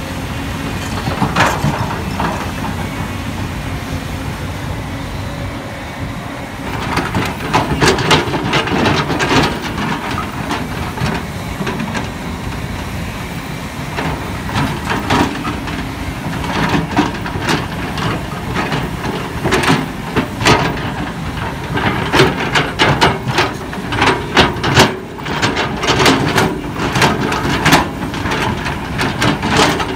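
Volvo EC350DL hydraulic excavator running steadily under working load while it digs. Frequent sharp clanks and scrapes from the bucket working through soil and stones are thickest from about seven seconds in.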